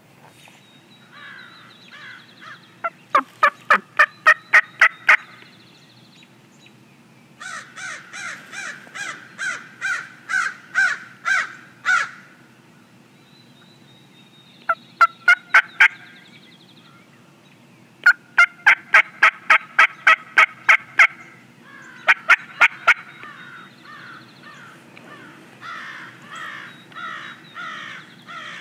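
Wild turkeys calling in runs of sharp, evenly spaced notes, about three to four a second. There are several runs with short pauses between them, and the last few are softer.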